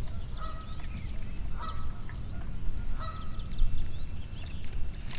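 A goose honking three times, with the calls spaced roughly a second and a half apart, over the higher, quicker chirps of small birds.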